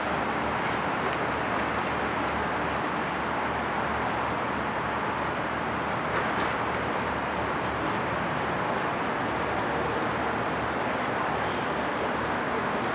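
Steady waterfront ambience: an even rush of noise with a low engine throb underneath and a few faint, short bird chirps.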